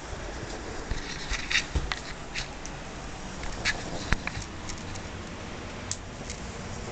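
Scattered soft clicks and rustles of someone moving quietly and handling a recording device at close range, over a steady low background hum.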